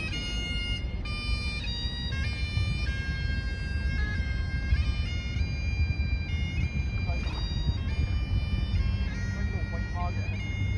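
Bagpipes playing a tune: held notes that step from one pitch to the next every fraction of a second to a second, over a steady low rumble.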